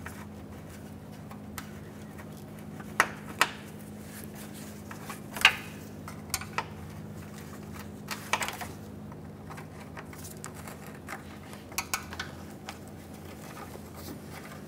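10 mm hand wrench clinking against a bolt and the surrounding metal while the bolt on the radiator fan assembly is worked loose: a handful of sharp, irregular metallic clicks over a steady low hum.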